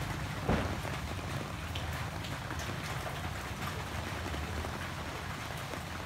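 Steady rain falling on the trees and leaves, a constant hiss with scattered louder drops striking close by, one of them about half a second in.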